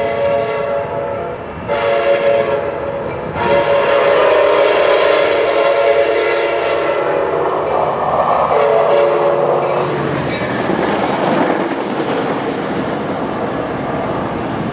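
Trinity Railway Express commuter train's locomotive horn sounding for a grade crossing. One blast ends about a second and a half in, a shorter blast follows, then a long blast is held until about ten seconds in. After that comes the rumble and clickety-clack of the passing train's wheels on the rails.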